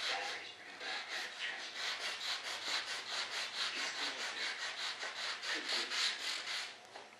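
Hand sanding of filled, primed spots on a model jet fuselage: quick back-and-forth scratchy strokes, about four a second, that stop shortly before the end.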